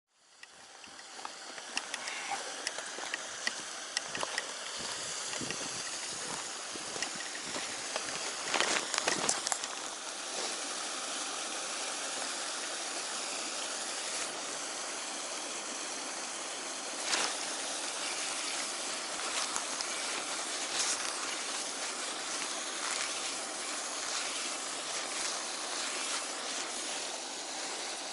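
Steady rush of flowing water, with scattered small clicks and a few louder knocks about a third of the way in and again past the middle. The sound fades in over the first second.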